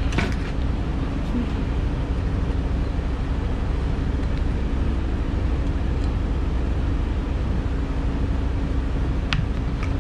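Steady low machine drone with a constant hum, from machinery running in a mobile grooming van. A single sharp click sounds near the end.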